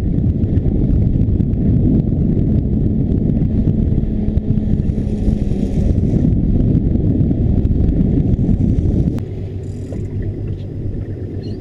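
Boat's outboard motor running hard, with water churning and rushing at the stern, then easing back to a lower, quieter run about nine seconds in.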